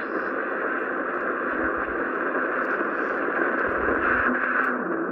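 Steady static hiss from the loudspeaker of a Siemens E-310 valve marine receiver tuned on the broadcast band, between stations, with no programme clearly heard.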